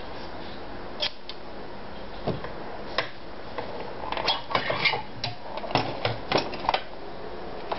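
Hard plastic clicks, knocks and scrapes from a Privileg Combi Super Automatic 580 sewing machine's clip-on extension table being gripped, unlatched and slid off the free arm. A few single clicks come first, then a quick run of them between about four and seven seconds in.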